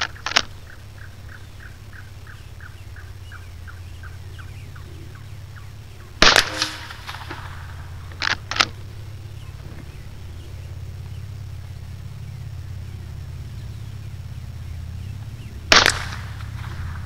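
Two rifle shots about ten seconds apart from a bolt-action rifle, the 7.62x54R Mosin-Nagant. About two seconds after each shot comes a pair of quick sharp clicks as the bolt is worked; there is one such pair at the very start as well. After the opening clicks a fast run of faint ticks fades out.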